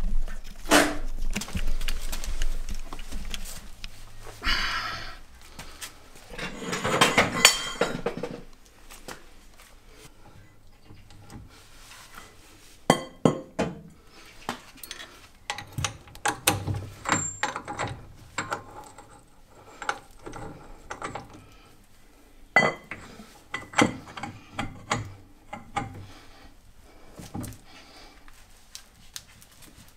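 Metal tools clinking and clanking on the axle nut of a VW Beetle rear brake drum as a socket and long breaker bar are fitted, worked and taken off. Scattered sharp knocks run throughout, with two longer, louder stretches of noise about four and seven seconds in.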